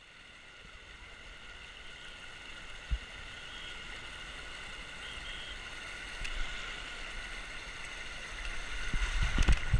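Water running down the top of a water slide: a steady rushing hiss that grows gradually louder. A single knock comes about three seconds in, and louder knocks and rumbling set in near the end.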